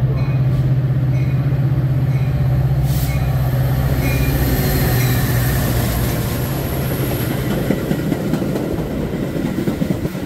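Metra commuter train braking into a station. The diesel locomotive's steady engine drone builds as it approaches and passes close by, then gives way to the rumble and clatter of bilevel coach wheels, with a faint high brake squeal.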